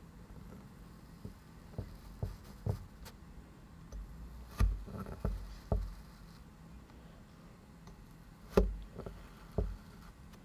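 Clear plastic cup pressed down over kinetic sand figurines, crushing them flat. A string of soft knocks and thuds as the sand gives way and the cup meets the table: a few light taps, then louder thuds about halfway through and again later on.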